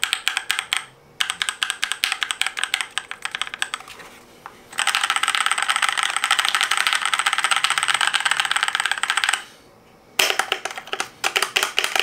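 Keychron K4 Version 2 mechanical keyboard with brown (tactile) switches being typed on, keys clacking in quick runs. A few short pauses break it up, with one long fast burst of rapid typing in the middle.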